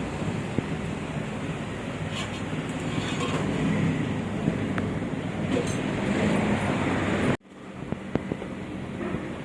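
Road noise from a moving vehicle in traffic: a steady rumble and wind hiss with no clear engine note. About seven seconds in, it cuts off abruptly to a quieter steady hum with a few light clicks and knocks.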